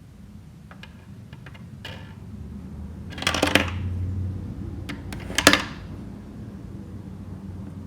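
Small candies poured into a LEGO-brick vending machine's hopper, clattering on the plastic bricks: a few light clicks, then two louder rattles about three and five and a half seconds in.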